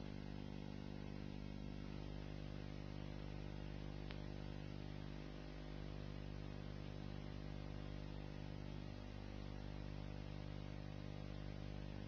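Faint, steady electrical hum with a stack of even overtones over a light hiss, unchanging throughout.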